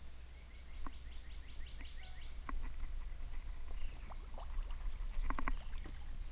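Knocks and clatter of a peacock bass being landed and handled in a plastic kayak, the loudest a quick cluster of knocks about five seconds in. A fast run of high ticks sounds from about half a second to two seconds in, over a steady low rumble.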